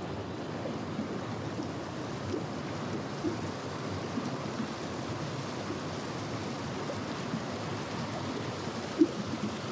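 Shallow mountain stream running over rocks and riffles: a steady rushing babble of water. A single sharp knock stands out near the end.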